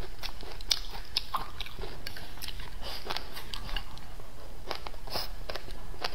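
Close-miked chewing of a mouthful of rice, with many irregular wet mouth clicks and smacks.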